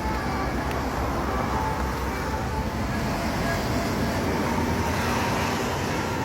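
Steady low rumble of a large bus's engine mixed with road traffic noise.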